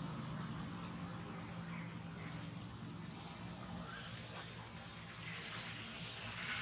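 Outdoor ambience: a steady high-pitched insect drone over a low, steady background hum.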